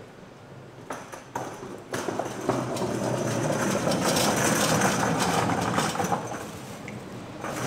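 A few sharp knife strikes on a wooden cutting board as sundae is sliced, followed by a loud rushing noise that swells from about two seconds in and eases off near the end.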